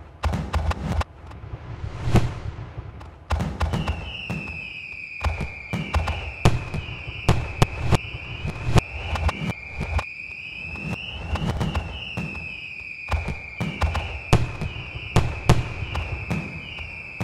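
Aerial fireworks going off: a rapid, uneven string of sharp bangs and cracks, joined from about three seconds in by a high, wavering whistle that keeps repeating.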